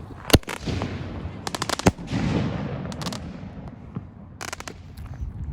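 A small consumer firework, a Zombie Minion, going off: one sharp bang, then three quick volleys of rapid crackling pops, with a hiss between them that fades away.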